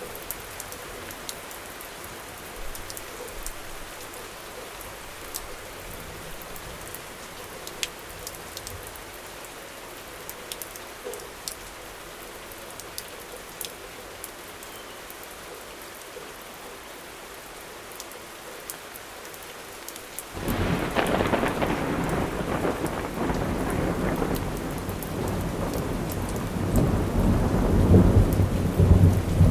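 Steady rain falling, with scattered drops ticking on hard surfaces. About two-thirds of the way in, a thunderclap breaks in suddenly and rolls on as a rumble that grows loudest near the end.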